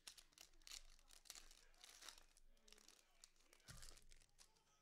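Foil trading-card pack wrappers being torn open and crinkled by hand, faint, in a run of quick crackling rips with a soft thump near the end.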